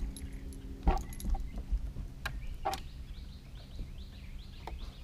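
A few sharp knocks and clicks on a bass boat's deck, the loudest about a second in, over a steady low hum that fades out about a second in. From about three seconds in, a small bird chirps in a quick repeated series.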